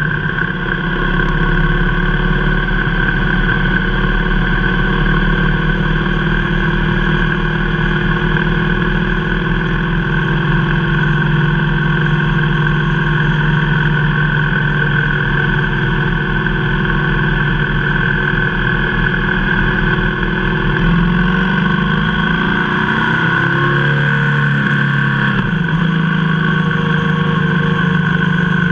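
Motorcycle engine running at road speed, with steady wind rush. About 21 seconds in, the engine note climbs for a few seconds, then drops suddenly, as with a throttle change and gear shift.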